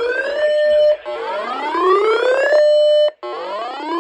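Electronic siren-style warning tone from a weather alert broadcast. Each cycle is a rising whoop that climbs for about a second and a half, holds a steady note, then cuts off sharply, and it repeats about every two seconds.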